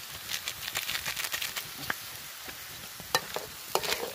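A metal spatula stirs and scrapes small snails in their shells around a wok as they sizzle, with frequent sharp clicks and clatters of shell and metal over a steady frying hiss. Two louder knocks come a little after three seconds and near the end.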